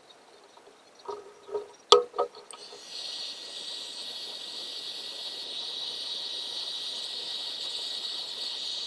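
A few clicks and knocks of handling, then an electric heat gun blowing a steady hiss of air with a thin faint whine, running about seven seconds before it cuts off suddenly.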